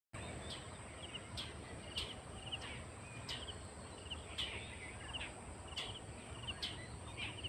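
Outdoor rural ambience: birds calling with short repeated chirps and quick falling notes about once a second, over a steady high insect drone and a low rumble.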